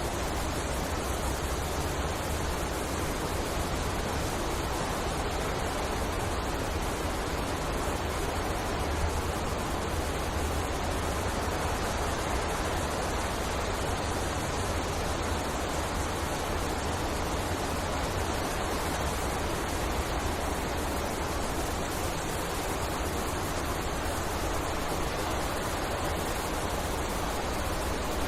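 Wind blowing through a forest: a steady rushing noise with a deep rumble underneath, unchanging throughout.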